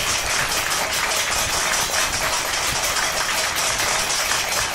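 A group of girls clapping their hands, a steady round of applause.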